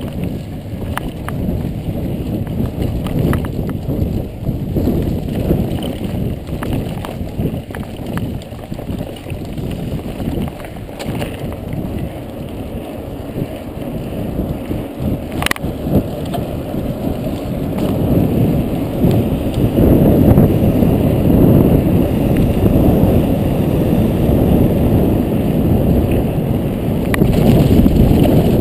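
Mountain bike being ridden along a trail, heard from a GoPro on the bike or rider: a steady low rush of wind and tyre noise with scattered rattles and clicks, one sharp knock about halfway, and the rush growing louder over the last third.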